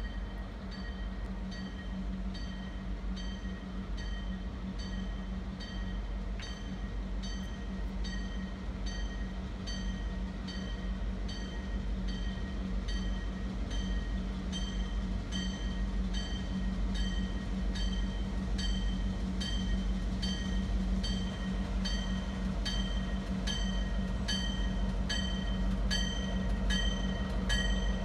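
Diesel locomotive approaching slowly, its engine running with a steady low drone while its bell rings in regular strokes about once or twice a second, both growing louder as it nears.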